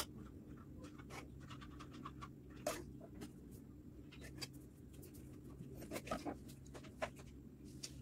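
Quiet steady low hum with a few faint scattered clicks and taps.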